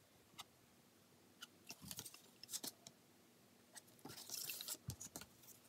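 Faint plastic clicks and soft scrapes from a DohVinci Deluxe Styler, a hand-squeezed plastic Play-Doh dispenser, as it pipes dots of dough onto a foam stencil. The clicks come singly at first and bunch together about four seconds in.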